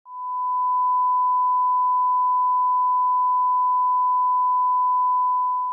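Steady, unbroken line-up test tone, a single pure tone at the standard thousand hertz, played with SMPTE colour bars at the head of a videotape recording to set audio levels.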